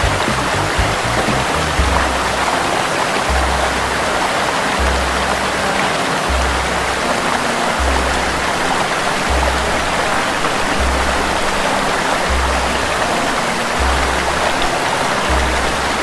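Water of a small rocky waterfall and stream rushing and splashing steadily over rock ledges. Under it, background music with a low, slow bass note about every second and a half.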